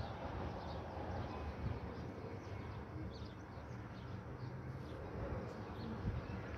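Outdoor background sound: faint, scattered bird chirps over a steady low rumble.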